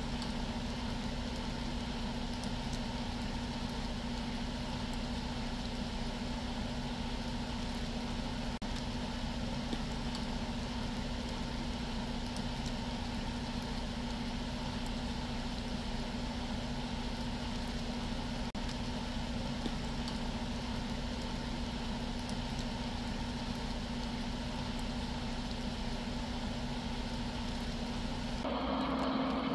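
Camera drone's rotors hovering: a steady, even hum that shifts slightly near the end.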